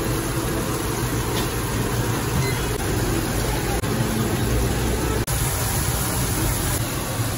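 Flour-coated chicken pieces deep-frying in a large fryer of hot oil, sizzling and bubbling steadily over a low hum.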